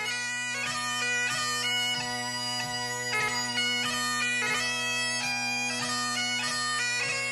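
Bagpipe music: steady drones under a chanter melody that moves from note to note with quick grace notes.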